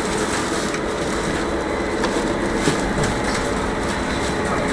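Inside a moving trolleybus: steady running and road noise with scattered clicks and rattles from the body.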